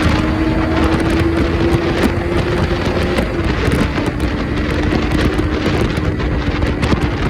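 Wind rushing over the microphone, with a steady engine-like hum underneath, as from a moving vehicle.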